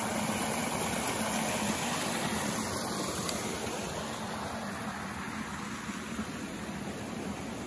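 River water rushing over rocks, a steady noise that fades slowly toward the end.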